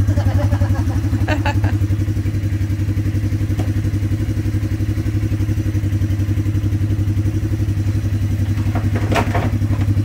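A motor running steadily in the background with a fast, even pulse and a low hum, with a brief voice about a second in and again near the end.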